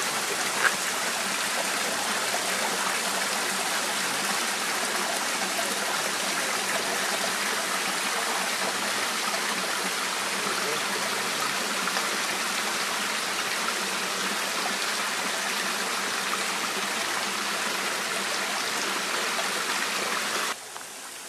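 Steady rushing of a tall waterfall, its water splashing down onto rock, which cuts off suddenly near the end.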